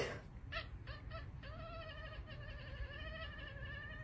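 Orange tabby cat giving a few short chirps, then one long wavering meow held for nearly three seconds.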